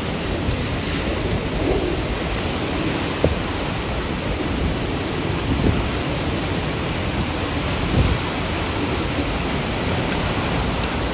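Hurricane-force wind and driving rain, a loud unbroken rush, with a few brief low thumps from gusts.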